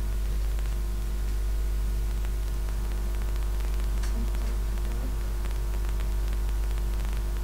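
Steady low electrical mains hum with static hiss from a poor recording setup, the loudest sound throughout. Under it, faint rapid clicks of a puzzle cube being turned during a speed solve.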